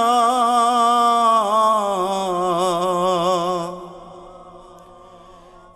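A singer holding one long, wavering note at the end of a line of a Bengali song, sliding slightly lower and fading out about four seconds in, then a quiet gap before the next phrase.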